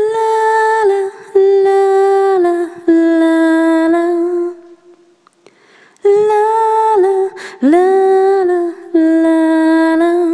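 A woman humming a slow, unaccompanied tune in long held notes. The phrases come in two groups of three, each stepping down in pitch, with a pause of about a second and a half between the groups.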